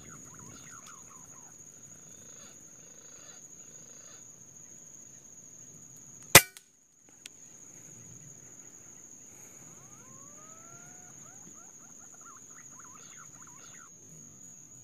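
A single sharp shot from a scoped hunting rifle about six seconds in, followed a moment later by a small click. Under it, faint bird chirps and a rising whistled call, over a steady high-pitched whine.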